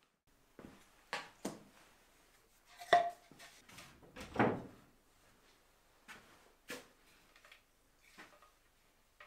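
Wooden boards and blocks being handled on a wooden workbench: scattered knocks and clatters, the loudest a sharp knock about three seconds in and a longer scraping clatter a second or so later, then lighter knocks and clicks as a wooden frame saw is taken up.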